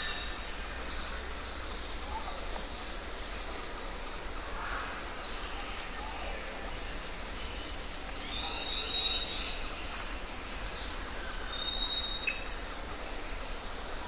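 Birds singing and calling over a steady background hiss: short high whistles and chirps scattered throughout, the loudest a chirp right at the start and a cluster of calls about eight to nine seconds in.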